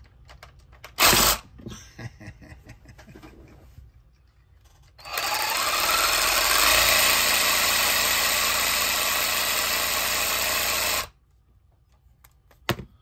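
Reciprocating saw (Sawzall) running as a paint shaker for about six seconds, shaking a clamped bottle of acrylic model paint to remix it. Its motor pitch rises as it starts, then runs steady and cuts off suddenly. A loud knock comes about a second in and a short click near the end.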